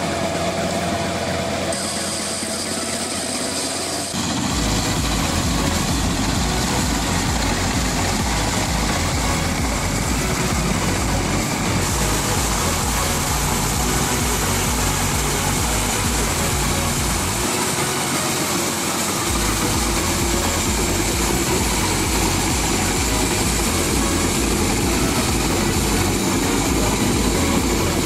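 Engine of a tracked crawler rotavator running steadily as its rotary tiller works waterlogged paddy soil. The sound shifts suddenly about four seconds in, getting louder and deeper, and changes again about halfway through.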